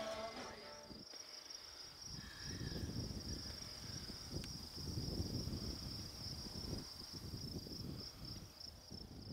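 Insects trilling in one steady high-pitched drone, with irregular low gusts of wind rumbling on the microphone. A bit of guitar music fades out in the first second.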